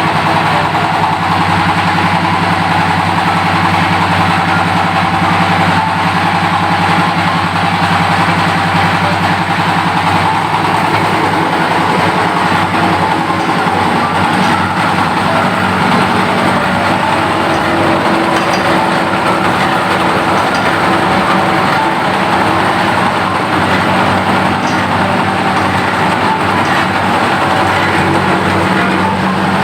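Meatball grinding machine's motor running steadily, a constant mechanical hum with a few steady tones.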